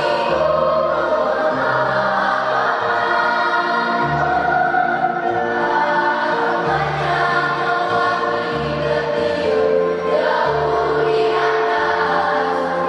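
Children's choir singing a song with instrumental accompaniment, its low bass notes changing about once a second.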